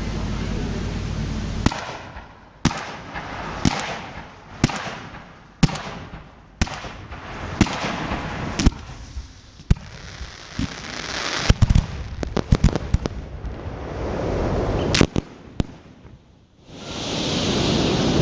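Fireworks display firing: a sequence of sharp launch bangs about once a second, with hiss between them, then a rapid cluster of crackling reports and a couple more bangs.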